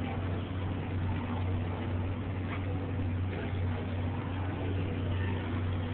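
A steady low machine hum under a constant noisy background, with no change in level.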